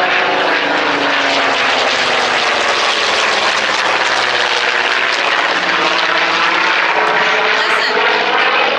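Loud, steady roar of a military display aircraft flying low overhead, its engine tones sliding slowly down in pitch as it passes.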